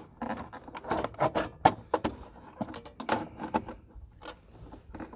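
Irregular clicks, taps and rattles as a steel throttle cable is fed up through a garden tractor's plastic dash console and handled into place.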